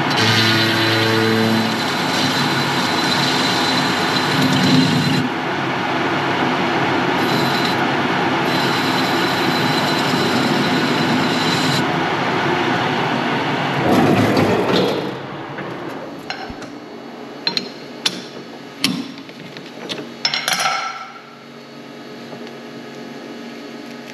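A loud power tool runs steadily for about fifteen seconds and then stops, followed by a handful of sharp clinks and knocks.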